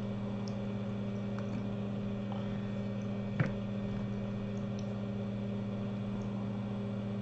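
Steady electrical hum from workbench equipment, with one short click about three and a half seconds in.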